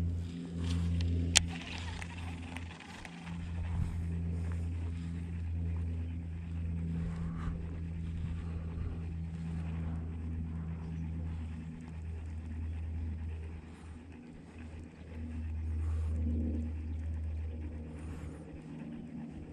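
A steady low engine hum from a motor vehicle running nearby, swelling and easing slightly in loudness, with a single sharp click about a second and a half in.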